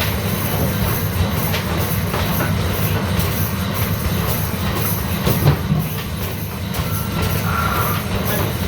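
Basketballs rolling down the return ramp of a basketball arcade machine in a steady low rumble, with scattered knocks of balls hitting the backboard and rim, amid arcade noise.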